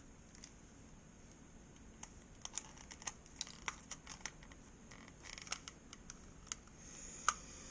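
Faint, irregular small clicks and taps of the plastic housing of a Logitech M570 trackball mouse being handled and worked at as it is taken apart, with one sharper click near the end.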